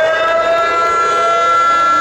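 Warning siren wailing at a steady, held pitch after winding up. It signals that the fireworks launch is beginning.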